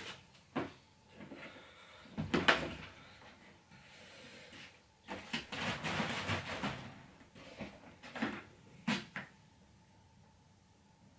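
Knocks and clatter of a plastic fuel jerrycan being handled and tipped over a moped's fuel tank: a few sharp knocks with a rustling, scraping stretch in the middle, then quiet near the end.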